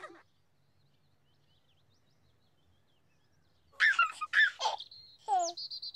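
Near silence for most of the first few seconds, then a baby giggling in short loud bursts, the Teletubbies Sun Baby, about four seconds in, followed by a quick falling glide and a high warbling trill.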